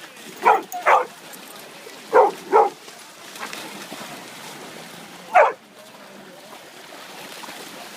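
A dog barking: two quick pairs of barks, then a single bark about five seconds in.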